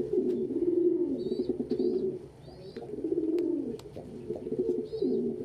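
Male domestic pigeon cooing in about four low, rolling phrases, the coo of a cock pigeon sparring with and courting a person's hand.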